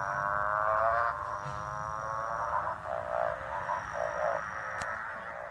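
Male motorbike frog (Litoria moorei) giving its mating call. It is a long, buzzy drone that slowly rises in pitch like a motorcycle speeding up, then breaks into a run of pulsed notes like changing gears, before fading out near the end.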